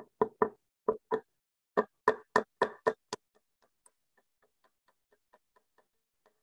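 Small hammer driving thin nails into a wooden board: about eleven sharp metal-on-metal taps, in quick uneven pairs and runs, over the first three seconds. After that come only faint light ticks, about four a second.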